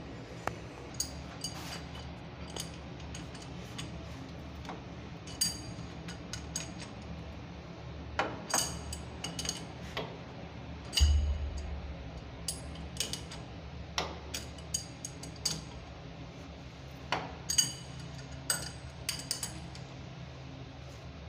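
Irregular metallic clinks and taps of a steel adjustable wrench against the threaded metal wall fittings of a bath mixer as they are screwed in and tightened. A single dull thump stands out about halfway through.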